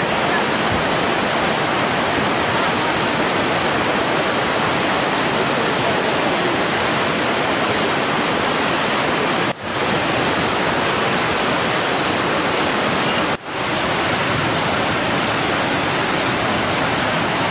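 Swollen, muddy floodwater of a river in spate rushing past in a steady, unbroken wash of noise, with two brief dropouts, about halfway through and again about three-quarters of the way in.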